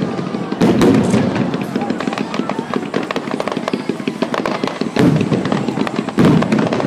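Fireworks going off: several heavy bangs, about a second in, near five seconds and again near six, with dense crackling of bursting stars in between.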